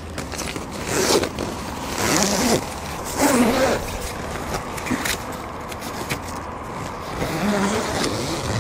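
Wide zipper on a Carp Pro Diamond carp tent being drawn along the front wall, in several separate, uneven rasping runs as the wall is zipped into place.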